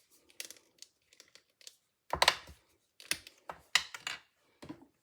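A run of sharp clicks and taps with some paper crinkling, from handling a marker and card stock on a craft table; the loudest cluster comes about two seconds in, with more between three and five seconds.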